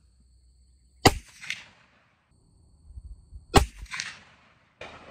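Two shots from an inline muzzleloader rifle, about two and a half seconds apart, each a sharp report followed by a brief echo. The rifle is loaded with 70 grains of loose Blackhorn 209 powder and ignited by CCI No. 157 shotshell primers, which fire on each shot.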